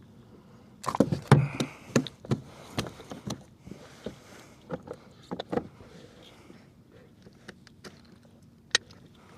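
Irregular knocks, taps and clicks of a caught sea trout and gear being handled and measured in a kayak, with a quick flurry of louder knocks about a second in and a single sharp click near the end.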